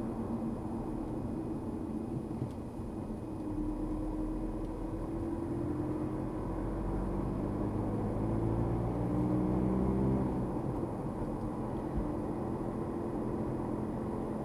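Car engine and road noise heard from inside the cabin. The engine note rises steadily as the car accelerates from a few seconds in, then falls away about ten seconds in.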